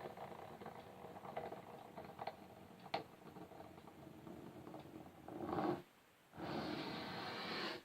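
Fingernails and skin scratching and rubbing on wood: a scratchy rasp full of small clicks, with one sharp click about three seconds in. Near the end a louder swell, a short pause, then a steady louder rubbing that cuts off suddenly.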